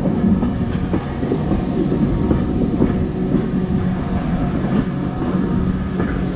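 A steam-hauled heritage train running along the line, heard from aboard a carriage: steady rolling noise with the wheels clattering over the rails.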